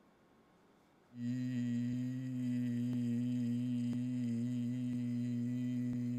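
A patient's voice holding one steady, low-pitched vowel tone, starting abruptly about a second in, as the vocal folds phonate after laser treatment of vocal fold dysplasia.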